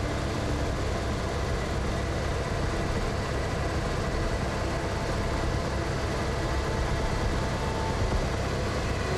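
Steady engine noise of an aircraft heard from on board: a constant low rumble with a few steady tones over it.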